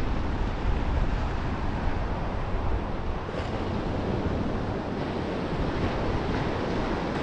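Surf washing up onto the beach in a steady hiss, with wind buffeting the microphone in a low rumble.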